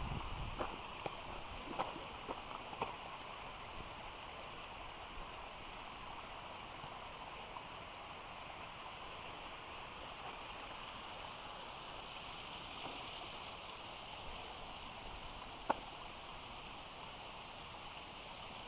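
Steady rush of flowing water from a creek, with a few sharp clicks in the first three seconds and a single click near the end.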